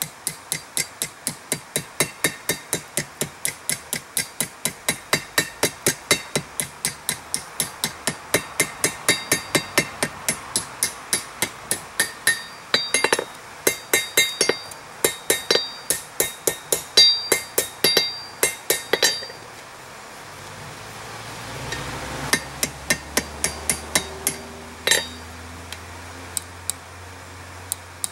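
Hand hammer striking a hot steel rod on an anvil at about three blows a second, bending the end of a coal forge poker, each blow ringing off the steel. About twenty seconds in the blows pause, a few more follow, and a low steady hum comes in.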